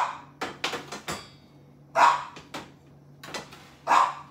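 A dog barking indoors, single barks about two seconds apart, three in all. Between the first two barks come a few light clicks and a short metallic clatter.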